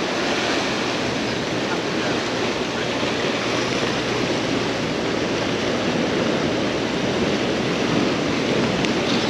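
Steady rushing noise of wind buffeting the microphone over choppy, whitecapped sea water churning below.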